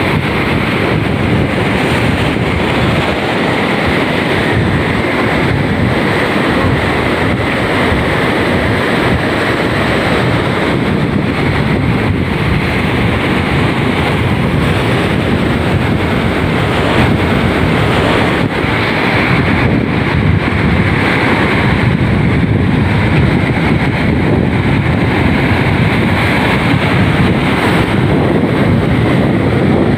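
Sea surf washing in and breaking against a rock breakwater, with wind buffeting the microphone: a steady, loud wash of noise.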